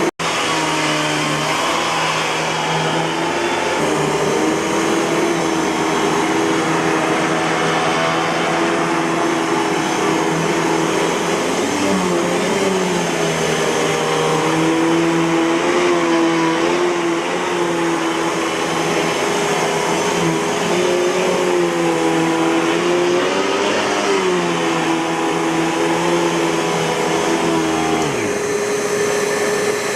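Eureka Boss 6833B canister vacuum cleaner running with a steady motor whine, its pitch dipping and recovering now and then as the airflow through the hose changes.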